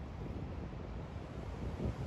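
Wind buffeting the microphone outdoors: an uneven low rush of wind noise.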